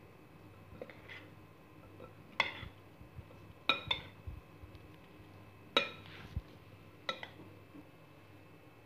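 Metal spoon clinking against a glass bowl as a couscous salad is stirred: about five ringing clinks at irregular intervals, with a few fainter taps before them.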